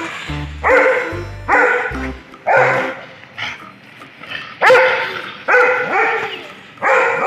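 Dog barking repeatedly, about once a second, with children's background music playing under the first couple of seconds.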